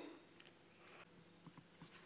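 Near silence: faint room tone with a few faint ticks.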